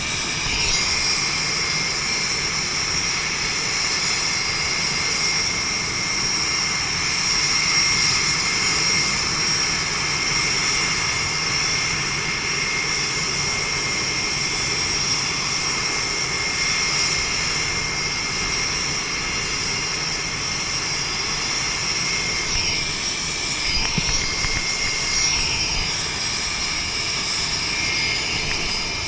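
Jet aircraft engines running on an aircraft carrier's flight deck: a steady high-pitched whine over a continuous rushing noise. The whine wavers briefly near the end.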